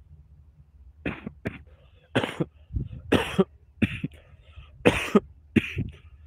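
A man coughing in a fit: about ten short, harsh coughs in quick groups, starting about a second in.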